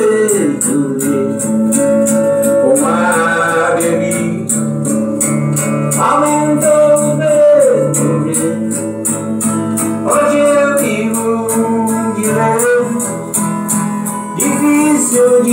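Recorded song playing an instrumental break: acoustic guitar under a lead melody line, with a steady percussion tick about four times a second.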